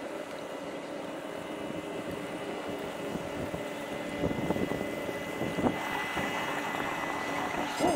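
Motorboat engine running steadily out on the water, a continuous hum of several steady tones.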